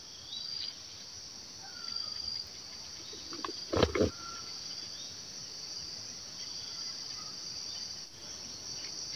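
Steady high insect chorus, with a few short chirps scattered through it and one brief louder sound about four seconds in.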